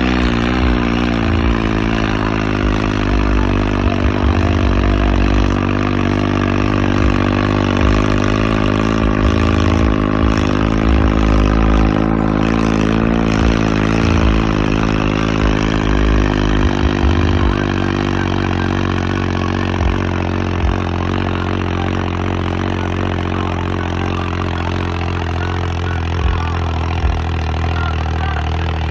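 Modified tractor's diesel engine running steadily under heavy load, with a slight rise and fall in pitch, as the tractor holds a wheelie with its front wheels off the ground.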